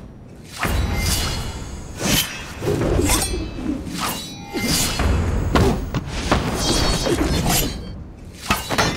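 Staged weapons-fight sound effects: a rapid series of sharp metal clashes and thuds, some of them ringing on, over dramatic film-score music with a deep bass pulse.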